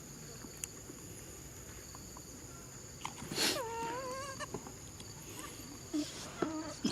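A young monkey calling: a harsh burst about three seconds in runs into a wavering cry of about a second, then a few short squeaks near the end. Steady high insect drone behind.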